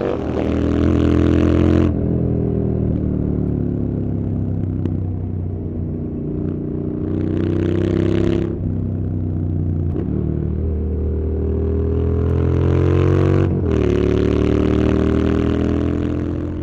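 Motorcycle engine under way, its note climbing and dropping several times as it revs, with a few sudden shifts in the sound.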